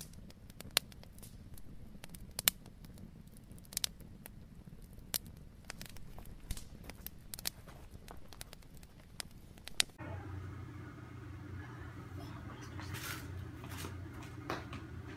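Scattered sharp clicks and light taps, irregular, several a second at times; about ten seconds in they thin out and a steady low hum comes in.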